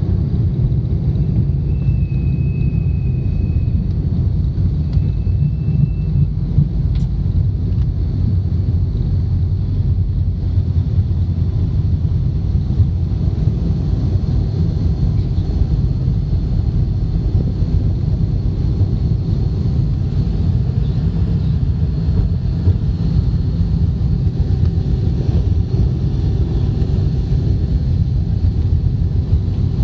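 Cabin noise of an Avro RJ85 on the ground after landing: a steady low rumble from its four Lycoming LF507 turbofans, with a faint high engine whine running through it. Two short high beeps sound about two and five seconds in.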